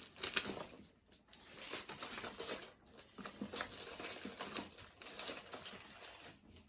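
Plastic packaging crinkling and small plastic kit parts clicking as they are rummaged through, in an irregular run of rustles and clicks.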